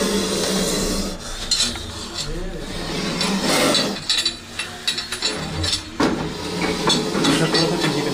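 Indian spectacled cobra hissing in repeated bursts as it rears with its hood spread, a defensive threat. Knocks and clinks come in among the hisses as things beside it are handled.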